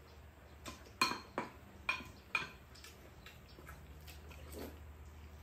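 Spoons and chopsticks clinking against ceramic bowls during a meal: about five sharp clinks in the first half, the loudest about a second in, then only small faint taps.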